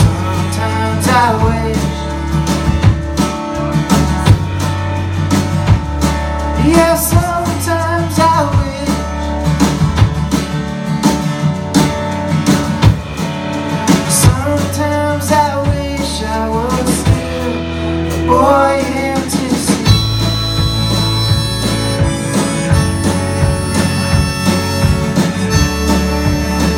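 Live band playing an instrumental break of an Americana song: acoustic guitar, electric guitars and drums over a steady bass, with a lead melody bending in pitch that gives way to steadier held tones about twenty seconds in.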